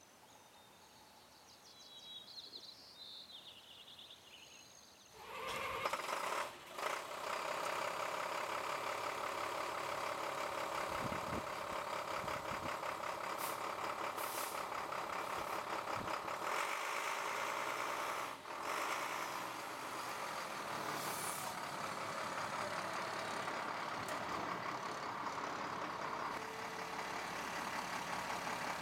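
A large truck engine running steadily. It starts about five seconds in, after a few seconds of faint quiet, and keeps on with a few brief clicks and dips.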